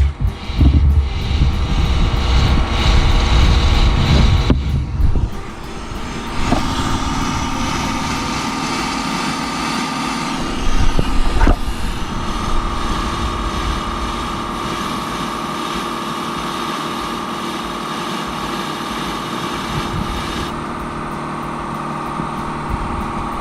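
A machine running steadily: a heavy low rumble for about the first five seconds, then a steady hum with a held whine to the end.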